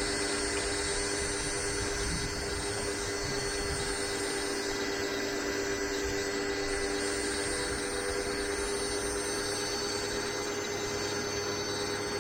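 Pressure washer running steadily, a constant machine hum.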